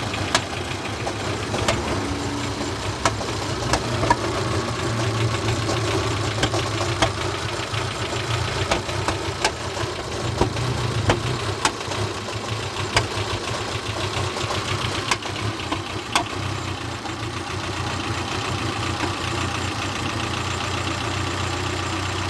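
Peugeot 301 engine idling unevenly, with irregular sharp pops about once a second over a steady hum: a misfire that the owner says lasts until the engine warms up, and which he puts down to a failing lambda (oxygen) sensor.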